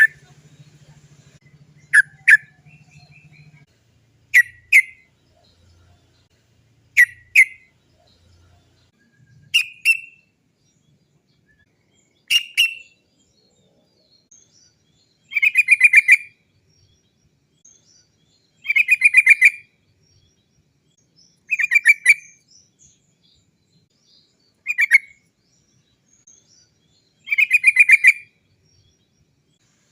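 Yellow-vented bulbul (trucukan) singing in separate phrases every two to three seconds. The early phrases are short double notes. From about halfway in they become longer rapid rolls of repeated 'cok cok cok' notes, about a second each.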